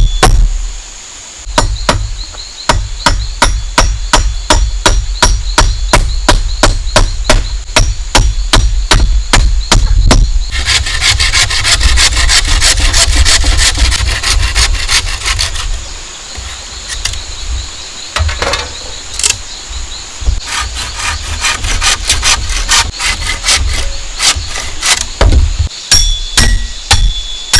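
Bamboo being worked with hand tools: a run of quick, even strokes, about three a second, then a dense stretch of rapid scraping in the middle, then more spaced strokes near the end.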